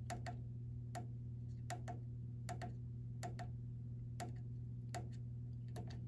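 Small push button on a Goodman 9-speed furnace's Emerson control board being pressed over and over, about once every three-quarters of a second, each press a sharp click, mostly a quick pair, as the display menu is stepped back to idle. A low steady hum runs underneath.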